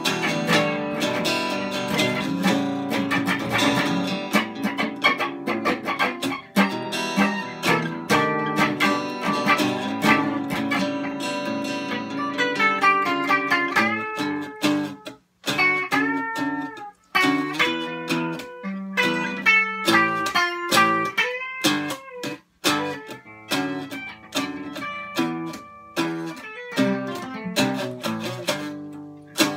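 Two guitars, an electric and an acoustic, playing an instrumental passage together without vocals: dense strummed chords for about the first half, then sparser picked notes with a few short breaks.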